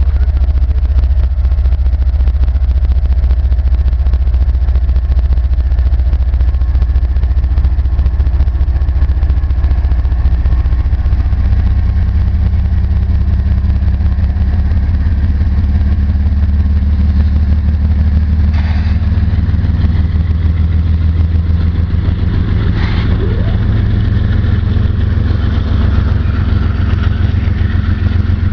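Canadian Pacific diesel-electric freight locomotives passing close by, their engines making a loud, steady low drone that grows fuller as the second locomotive comes alongside. Two short, sharper noises cut through about two-thirds of the way in.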